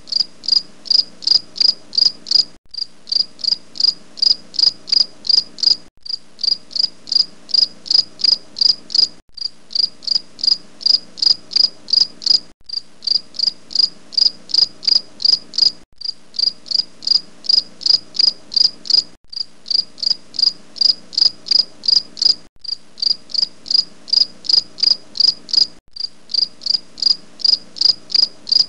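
Crickets chirping in an even rhythm, about three high chirps a second, with a brief drop-out every three seconds or so, as in a looped recording.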